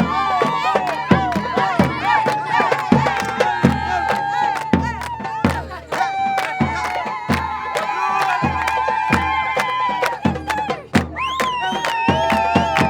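Lebanese zaffe wedding procession: drums beating in quick strokes under a held, wavering melody line, with a crowd shouting and cheering over it.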